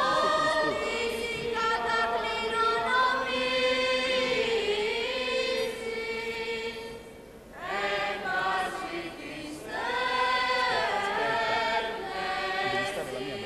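Choir singing Byzantine liturgical chant in the Italo-Albanian tradition: slow phrases of long held and gliding notes. It breaks off for a breath about seven seconds in and then carries on.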